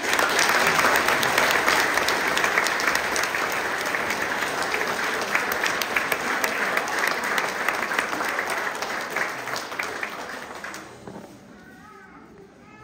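Audience of schoolchildren applauding, a dense clatter of many hands clapping that dies away near the end.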